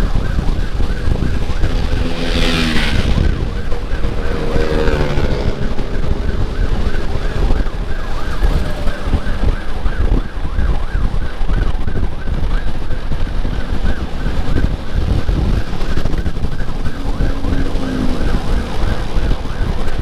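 Motorcycle escort siren (Whelen HHS Lite module through a Senken YD100i horn speaker) sounding a fast warble of about four chirps a second over steady engine and wind rumble. A loud rushing burst comes about two and a half seconds in, and short pitched tones sound a few times.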